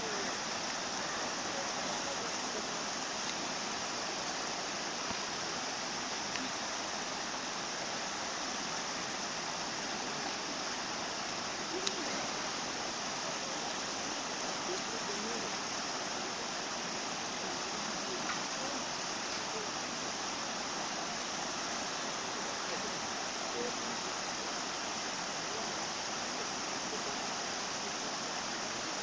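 Steady, even rushing noise like running water, at a constant level throughout, with one faint click about twelve seconds in.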